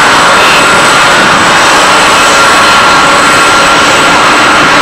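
Airbus A321-231 jet airliner taxiing, its IAE V2500 turbofans at low thrust: a steady rushing noise with a high, even whine.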